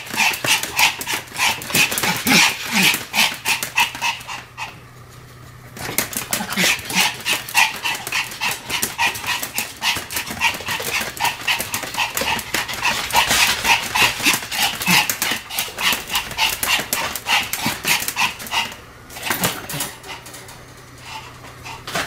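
Pomeranian barking in a rapid, unbroken run of short barks, with two brief pauses: about four seconds in and near the end.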